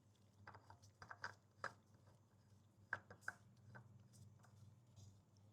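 Faint clicks and scrapes of a new oil filter being screwed on hand tight, in short bursts with the loudest clicks about a second in and about three seconds in, over a low steady hum.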